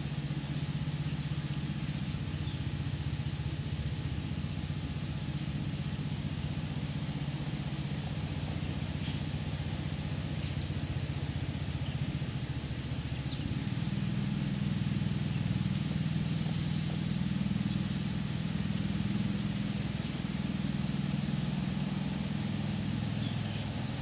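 Steady low hum of a distant motor, growing a little louder over the second half, with faint bird chirps above it.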